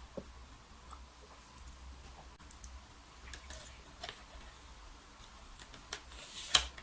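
Close-miked eating: scattered small clicks and mouth sounds while chewing, with the sharpest click about six and a half seconds in.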